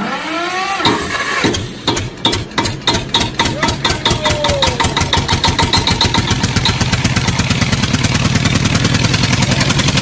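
Engine-like starting and revving sound: a loud run of pulses that speeds up steadily, with a few falling whistle-like tones in the first second or so.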